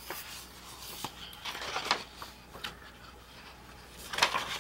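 Sheets of scrapbook paper rustling as they are handled and flipped over, with a louder rustle near the end as the top sheet is turned.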